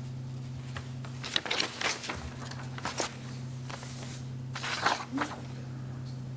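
Sheets of paper being handled and turned near a microphone, rustling in short bursts about one and a half, three and five seconds in, over a steady low hum.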